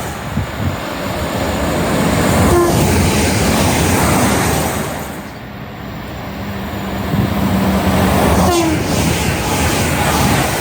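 A train passing at speed: a loud, continuous rush of wheel and rail noise that eases off about halfway through and then swells again.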